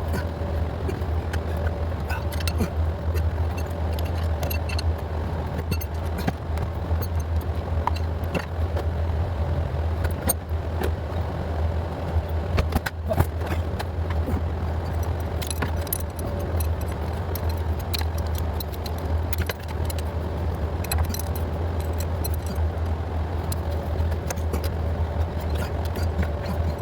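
Scattered light metallic clicks and clinks of hand tools and fuel injector parts being handled while working the injectors off the fuel rail, over a steady low hum.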